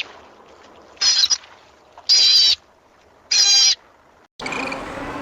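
An animal giving three loud, high-pitched calls about a second apart, each roughly half a second long. Near the end a different, busier sound with clattering cuts in.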